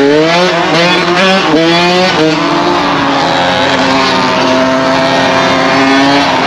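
Dirt bike engine accelerating hard through the gears. Its pitch climbs and falls back several times at each shift in the first couple of seconds, then holds at a fairly steady cruising note.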